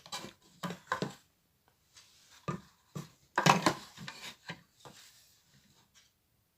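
Hands handling small parts and tools on a workbench: a string of short clicks and knocks with brief rustles, the loudest cluster a little after three seconds in.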